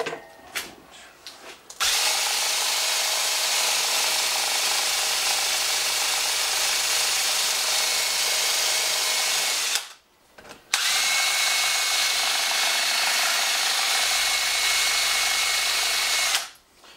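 Cordless drill running steadily with a faint whine in two long runs, about eight and five seconds, with a short stop in between. It is held against a freshly poured plaster investment mold to vibrate air bubbles out.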